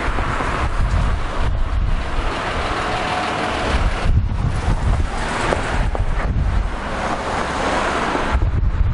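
Wind buffeting the microphone over the tyre hiss and engine noise of traffic passing close by: a flatbed recovery truck goes past, then cars.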